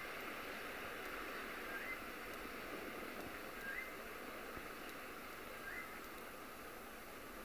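Steady outdoor hiss with an animal's short rising whistled call, repeated about every two seconds.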